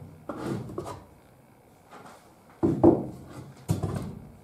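Pieces of lumber being handled and set down on a workbench: wood scraping and knocking on wood, a few separate knocks with the loudest pair about two and a half seconds in.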